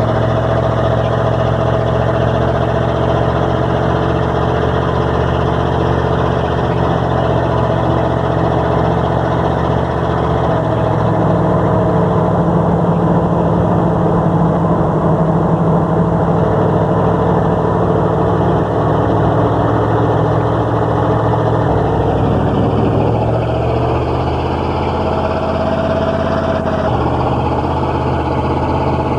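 A motor vehicle's engine running steadily for the whole stretch, its low hum shifting in pitch a few times: up about 11 seconds in, down around 22 seconds, and again near 27 seconds.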